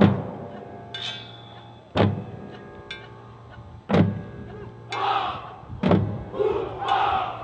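Marching band front ensemble playing a slow, sparse passage: a heavy percussion hit about every two seconds, each left to ring over a sustained low tone, with a higher ringing tone about a second in. Two rushes of noise come near the end.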